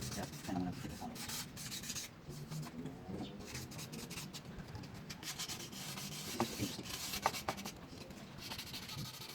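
Irregular rubbing and scratching strokes worked by hand over the plastic of a faded headlight lens, with a few light clicks about six and seven seconds in.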